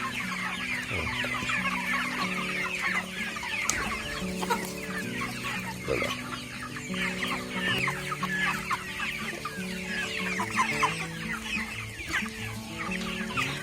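A flock of young broiler chickens calling without a break: many overlapping short, falling peeps and clucks. Background music with held notes plays underneath.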